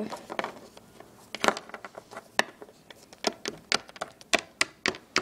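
Small plastic Littlest Pet Shop toy figures tapped against a hard tabletop as they are hopped along by hand: a string of sharp irregular clicks that come closer together in the second half.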